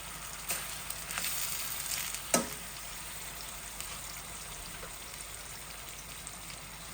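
Chicken thighs sizzling steadily as they fry in a hot skillet, with a few light clicks and one sharp knock about two and a half seconds in.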